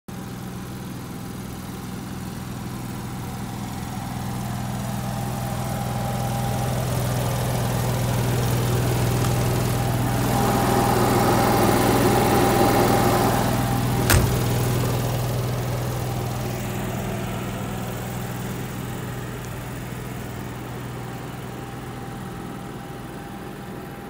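Ford-chassis engine of a 2004 Forest River Georgetown motorhome idling steadily, growing louder toward the middle and fading again. A single sharp click a little past halfway.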